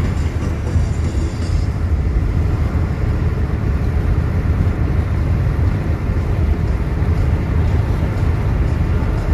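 A moving car heard from inside its cabin: a steady low rumble of road and running noise.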